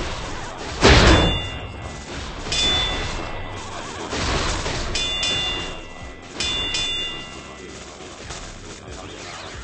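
A series of knocks and metallic clangs that leave short ringing tones, the loudest a heavy thud about a second in.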